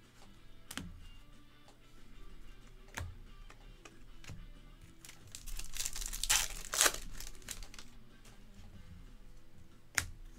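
Foil wrapper of a 2024 Bowman baseball hobby pack torn open and crinkled, loudest about six to seven seconds in. A few sharp clicks of cards and a plastic card holder being handled come before and after.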